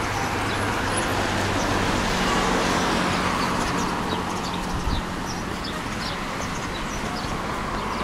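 Road traffic passing: a steady rush with a low engine hum that fades about five seconds in, and small birds chirping high above it.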